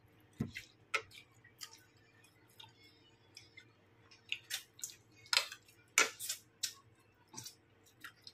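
Scattered light clicks and taps of a metal spoon and fingers on ceramic plates during a meal, with a few louder clinks about five to six seconds in.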